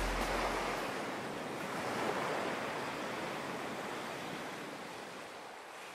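Ocean surf: a steady rush of breaking waves that swells slightly about two seconds in and then slowly fades out.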